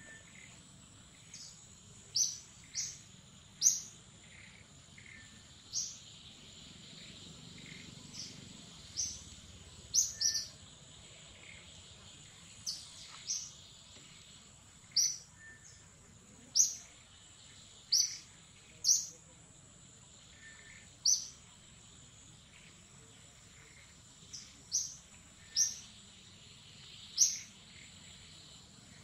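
Short, sharp, high bird chirps repeat irregularly, about one every second or two and sometimes in quick pairs, over a continuous steady high-pitched insect drone.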